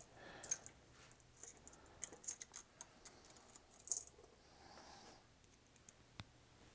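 Small metal screws and a screwdriver being handled: a scattered run of light metallic clicks and clinks, the loudest cluster about four seconds in.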